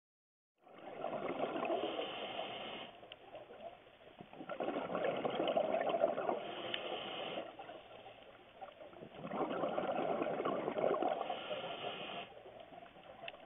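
Scuba diver's exhaled bubbles from the regulator, heard underwater through the camera housing. There are three gurgling rushes of bubbles, each lasting two to three seconds and coming about four and a half seconds apart, one per breath, with quieter stretches in between.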